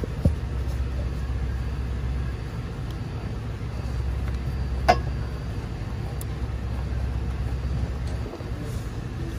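Two sharp clicks of tools or parts being handled while working on the car's air-conditioning condenser, one just after the start and one about halfway through, over a steady low rumble.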